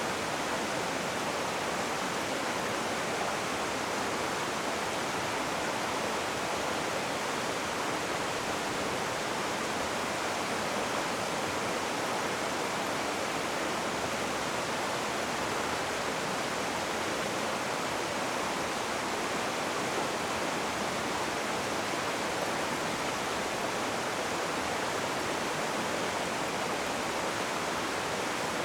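Rushing river water: a steady, unbroken rush with no distinct splashes or changes.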